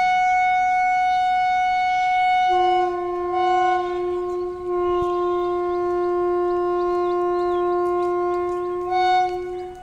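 Locomotive air horn giving a long departure blast. One high note sounds first, a lower note joins about two and a half seconds in, and the two are held together until the horn cuts off near the end.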